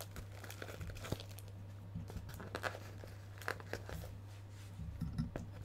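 Cardboard box being pierced open by hand: faint, scattered crunching and scraping of cardboard, over a steady low electrical hum.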